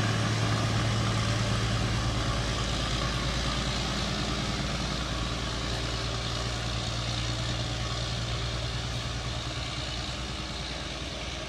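Small diesel shunting locomotive's engine drone as it hauls a train of coaches away, slowly fading as it draws off.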